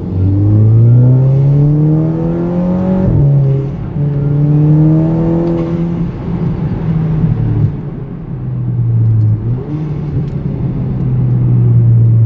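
Audi TT mk2 engine heard from inside the cabin, accelerating hard with its pitch climbing, then dropping sharply at quick S-tronic dual-clutch upshifts about three and six seconds in. It then pulls more steadily, with a brief dip and recovery near the end.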